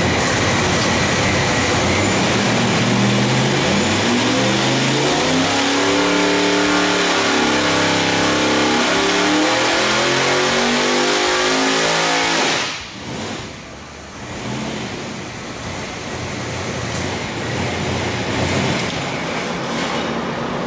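Centrifugal-supercharged V8 on an engine dyno making a full-throttle pull, its pitch climbing steadily toward about 6,500 rpm under 13 psi of boost. About twelve and a half seconds in, the throttle snaps shut and the engine falls back to a much quieter idle.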